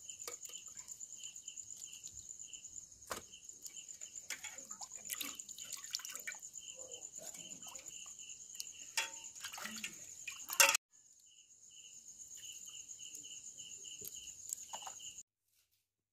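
Water sloshing and dripping as hands squeeze and rinse raw chicken pieces in a pot, with a sharp knock about ten seconds in. A steady high trill and pulsing chirps of night insects run underneath.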